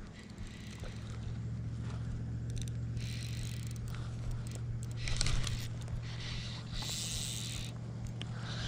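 Scraping, zipping rustles in several short bouts from the fly rod, reel and line being handled while fighting a hooked tarpon, over a steady low hum.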